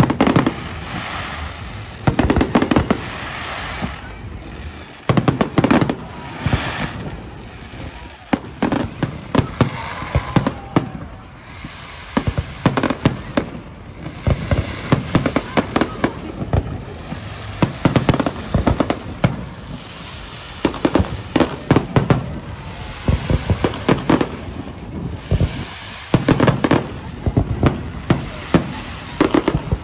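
Fireworks display: a long irregular series of bangs from aerial shells bursting, with clusters of quick cracks in between.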